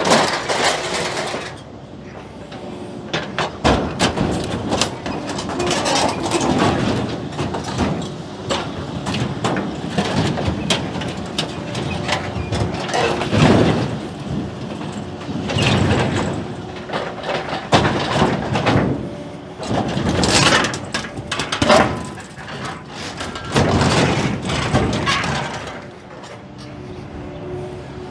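Excavator grab tearing and crushing scrap farm machinery: repeated crunches, creaks and screeches of bending steel every few seconds over the excavator's steady engine.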